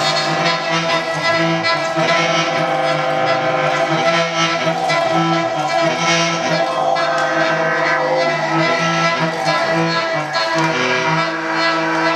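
Experimental improvised music from homemade electro-acoustic instruments: many sustained pitches sound at once in a dense drone, with individual tones starting and stopping now and then.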